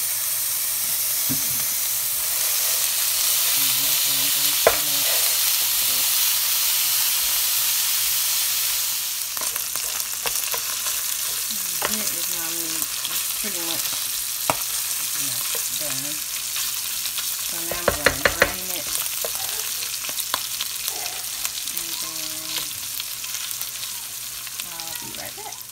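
Ground beef and diced onion sizzling in a nonstick frying pan, a steady hiss. After about nine seconds the sizzle drops a little and is broken by the scrapes and clicks of a wooden spatula stirring and breaking up the crumbled beef.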